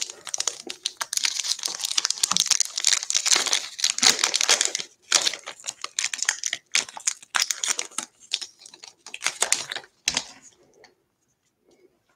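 The wrapper of a 2020 Bowman trading-card pack being torn open and crinkled by hand, a dense crackling that stops about ten seconds in as the cards come out.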